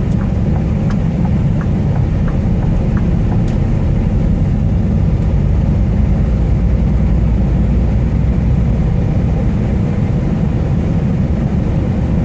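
Steady drone of a Scania R440 truck's diesel engine with road noise, heard from inside the cab while cruising on the highway. A few faint ticks sound in the first few seconds.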